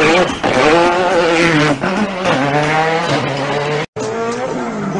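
Rally car engine revving up and down with tyre squeal, as in a WRC drift, overdubbed as a sound effect. The sound cuts out for an instant just before four seconds in.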